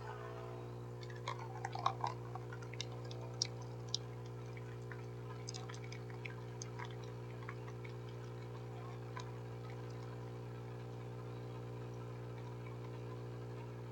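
A steady low electrical hum, with a scatter of light clicks and taps through the first several seconds.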